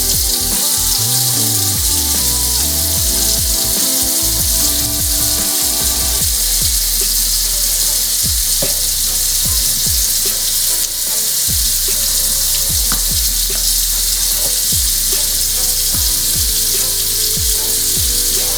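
Steady loud hiss of rushing air or spray, with background music and a regular bass beat about once a second underneath.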